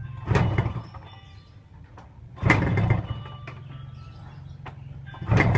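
Old engine warming up: three short loud bursts about two and a half seconds apart over a low steady hum.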